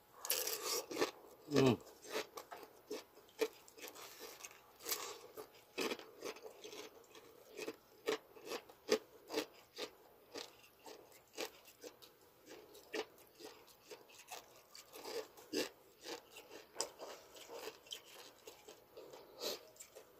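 Close-up crunching and chewing of crispy chicharon (fried pork rind), with many sharp crunches throughout. There is a short, falling sound about a second and a half in.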